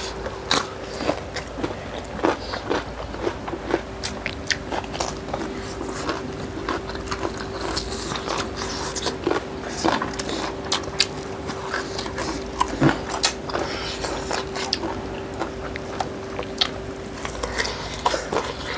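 Close-up eating sounds of two people chewing and biting chicken legs, rice and cucumber slices: irregular sharp crunches and clicks, over a faint steady hum.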